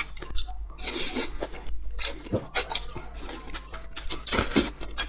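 Close-miked eating sounds: chewing and mouth smacks, an irregular run of short wet clicks with a few louder ones.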